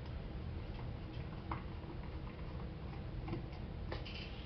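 A few faint, irregular clicks and taps from a plastic slide-controller housing and a screwdriver being handled on a desk, over a steady low hum.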